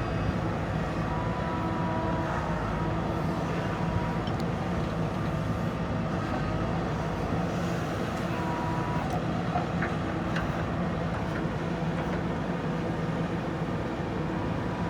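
JCB 3DX backhoe loader's diesel engine running steadily while it works soil, with a thin high tone rising above it twice for a second or two.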